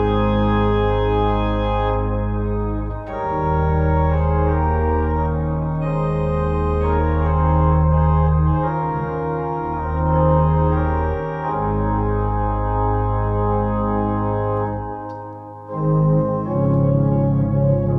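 Two-manual electronic church organ playing a hymn in full, sustained chords over a pedal bass. The sound briefly falls away about fifteen seconds in, at a phrase break, then the next phrase begins.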